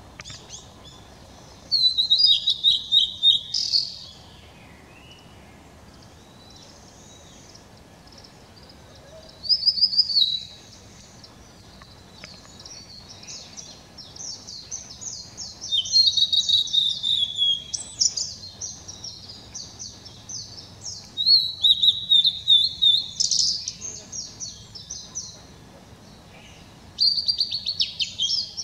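Male blue-and-white flycatcher singing: about five loud, high warbled phrases of a second or two each, coming a few seconds apart, many of them sliding down in pitch.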